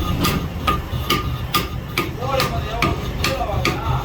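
Hammer blows on metal at a steady rhythm of about two to three strikes a second, over a steady low rumble.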